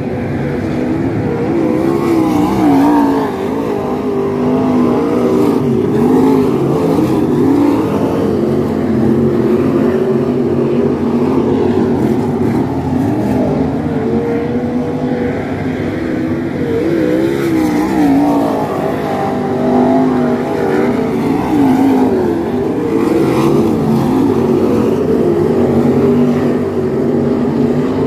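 A pack of dirt sprint cars racing, several V8 engines running together at high revs. Their pitch keeps rising and falling, and the sound swells every few seconds as cars come on and off the throttle.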